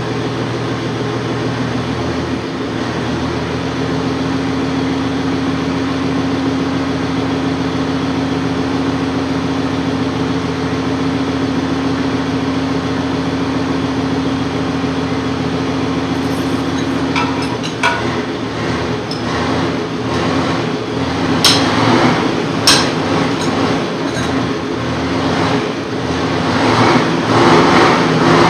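A steady mechanical drone, with a few sharp metal clinks in the second half from hand tools on a truck's rear wheel hub and brake assembly.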